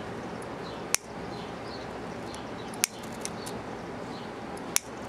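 Homemade smoke ball burning with a steady hiss, broken by three sharp pops about two seconds apart.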